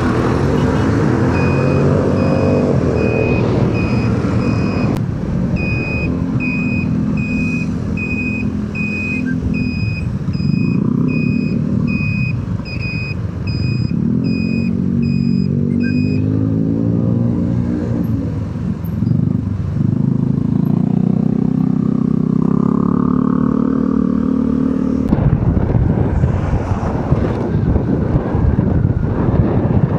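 Motorcycle engine running in stop-and-go traffic, its pitch rising and falling as it speeds up and slows down. For roughly the first half, a high beep repeats about twice a second. Near the end, wind rushes over the microphone.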